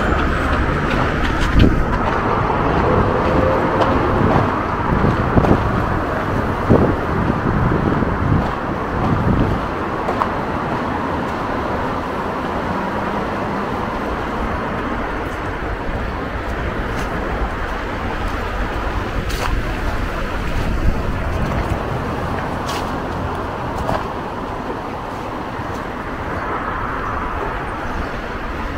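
Steady city street traffic noise from passing vehicles, with a few low knocks in the first ten seconds.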